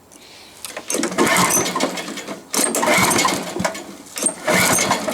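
Challenge Xtreme 3.5 hp four-stroke mower engine being pull-started after a stall: three pulls of the recoil cord, each about a second of rattly cranking, and the engine does not catch.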